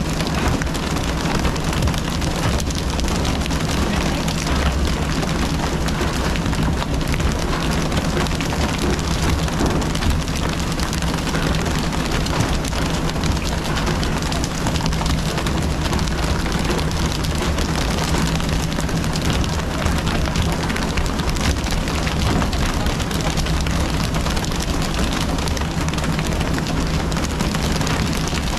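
Steady hum of the fishing boat's engine under a constant rush of water from the hull's sprayers and splashing at the sides.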